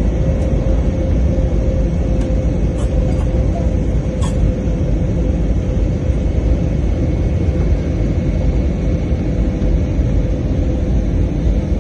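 Airliner cabin noise during the descent to landing: a steady rumble of engines and rushing air with a constant hum through it, and a few faint clicks a couple of seconds in.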